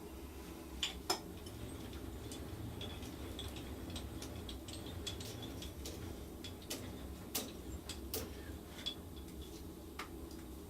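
A new lathe running during its first startup test: a steady low hum with irregular light clicks and ticks.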